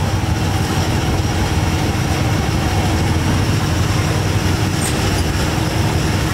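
Steady, loud rumbling noise with an even hiss over it, from a busy wet market and its aerated basins of live prawns, the air hoses bubbling the water.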